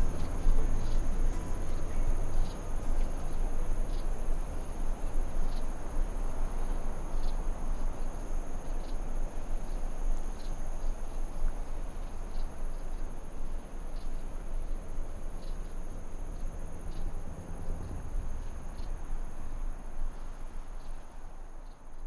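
Insects trilling steadily in a high continuous drone with faint regular pulses, over a low rumble. It all fades out near the end.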